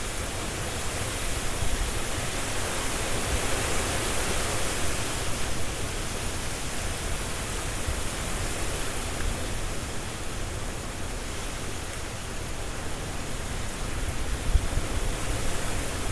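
Strong wind blowing through trees, leaves rustling, with a low rumble underneath. It swells and eases in gusts, with a stronger gust near the end.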